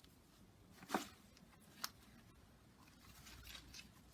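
Quiet rustling of potato plants and soil being worked through by hand, with two short clicks about a second apart and faint crackling toward the end.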